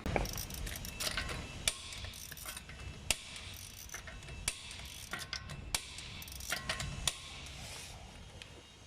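Hand ratchet wrench clicking in short runs, with a sharper metallic click about every second and a half.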